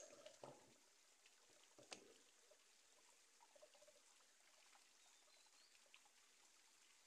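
Faint trickle of water pouring from a pipe spout into a metal basin, with a few light splashes or knocks: a couple about half a second in and the loudest about two seconds in.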